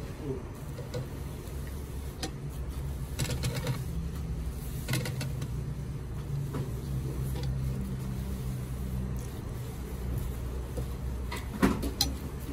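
Restaurant room noise: a steady low hum with scattered clinks and knocks of tableware and metal platters. The loudest is a sharp clatter near the end.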